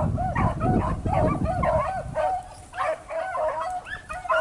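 Beagles baying on a rabbit's trail: a rapid run of short, rising-and-falling bays from more than one dog, overlapping at different pitches, the sound of the pack running the rabbit.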